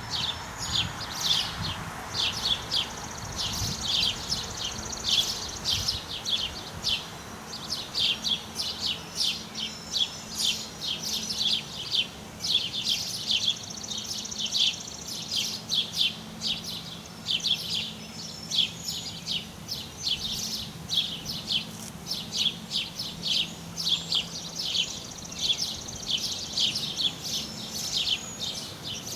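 Birds chirping quickly and continuously, many short high chirps a second, over a faint steady low hum.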